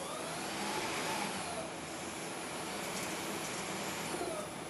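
Okuma LB3000 CNC lathe running while machining a steel shaft: a steady whirring noise, with a faint tone that rises and falls near the start and again about four seconds in.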